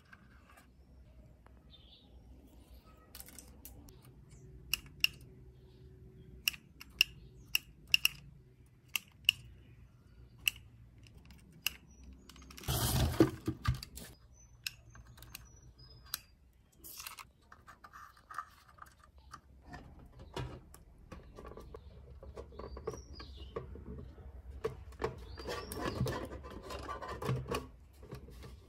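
Scattered small clicks and taps of hands handling the wiring, ribbon cables and plug connectors of an opened cassette deck. A louder brief rustle comes about 13 seconds in, and steadier shuffling and rustling of the deck's chassis follow in the last third.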